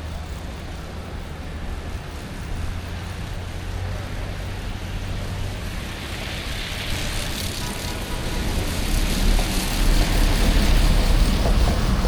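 City street ambience: a steady traffic hum that grows louder from about halfway through, as a vehicle draws near with a rising rumble and tyre hiss.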